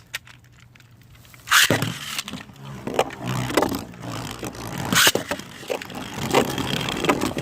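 Two Beyblade spinning tops, one of them 3D-printed, launched into a stadium about a second and a half in, then spinning and scraping around the bowl. Sharp clacks come as they collide, the loudest near the middle.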